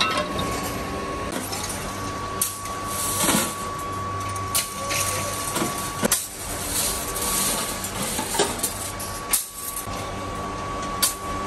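Scrap steel pieces clanking and clinking as they are tossed and shovelled into a steel wheelbarrow, in irregular sharp clanks, over a steady background hum.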